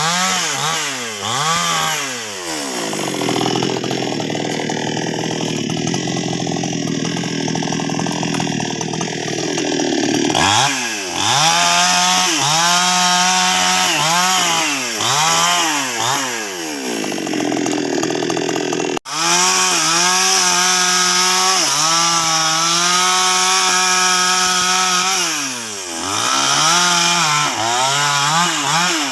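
NWESST 628 two-stroke chainsaw cutting sengon wood: one long sustained cut in the first third, then the engine blipped up and down between cuts and held at high revs for several seconds. The sound breaks off for an instant about two-thirds of the way through.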